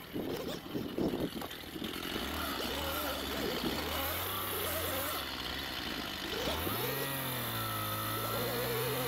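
Knocks and rustling for the first two seconds, then an engine running steadily; about two-thirds through its pitch rises and holds higher, as if revving up.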